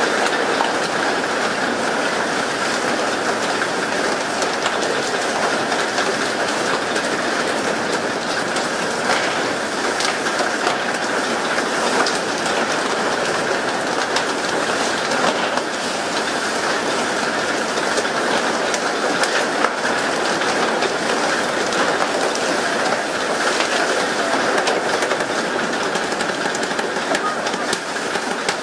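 Steady rushing noise of water spray and sea along the hull of a fishing boat under way, with a few faint knocks here and there.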